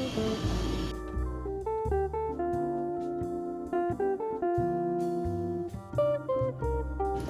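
Background music: plucked guitar playing a melody over a bass line.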